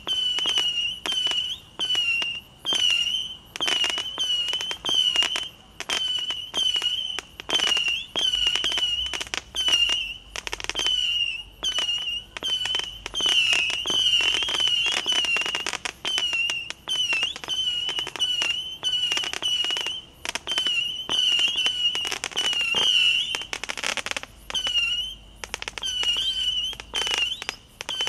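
Firework cake firing a rapid string of whistling shots, about two a second: each shot is a short, wavering high whistle with a sharp pop.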